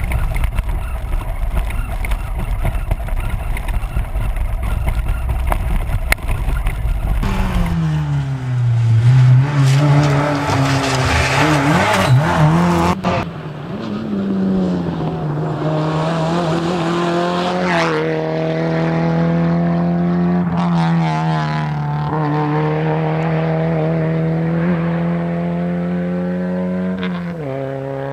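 Rally car engine on a special stage: after several seconds of loud rushing noise, the engine note drops and then climbs and wavers through quick revs and gear changes. It then holds a steady high note for over ten seconds before falling off near the end.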